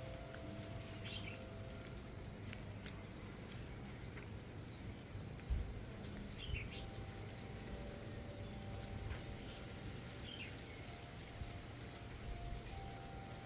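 Birds chirping now and then, short scattered calls, over a steady low hum, with a single low thump about five and a half seconds in.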